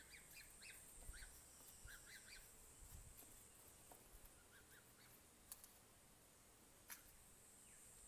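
Faint, short high peeps from Southern cassowary chicks, in quick runs during the first two and a half seconds and again briefly near the middle, over a steady high insect buzz. Two sharp clicks fall in the second half.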